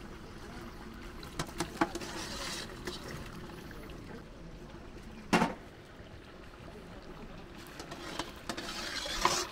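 Water being poured, swelling in a rush of noise twice. Several sharp knocks come before the first rush, and one louder knock comes about five seconds in.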